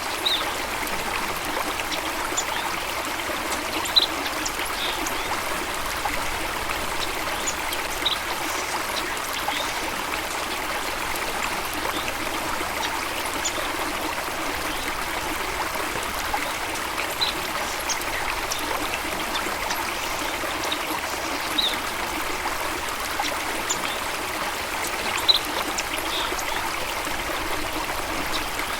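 Steady running water, with short high bird chirps scattered over it every few seconds.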